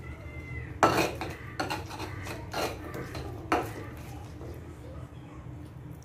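Stone pestle grinding spice paste in a stone mortar: wet scraping broken by a few sharp stone-on-stone knocks, the loudest about a second in.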